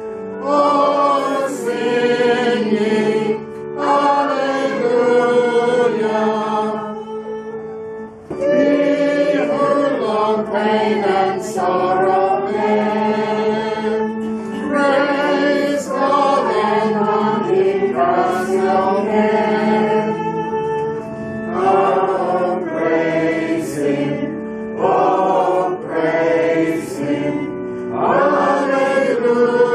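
A small congregation singing a hymn together, men's and women's voices in sung phrases with a short breath between lines.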